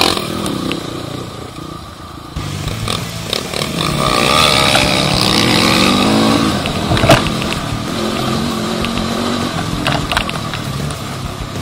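Crossfire CX250R 250 cc single-cylinder dirt bike engine running under way, with wind noise. Its revs rise as it accelerates about four to six seconds in, and a sharp knock comes about seven seconds in.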